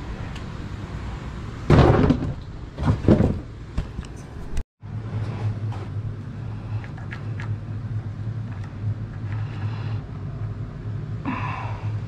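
A steady low mechanical hum, like a motor running, with two loud bursts of noise about two and three seconds in and a brief cut to silence just before the five-second mark.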